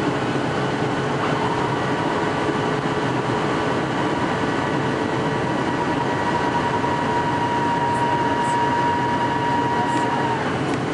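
Jet airliner cabin noise heard from a window seat: an even rush of air and engine noise. A thin steady whine sets in about a second in and stops near the end.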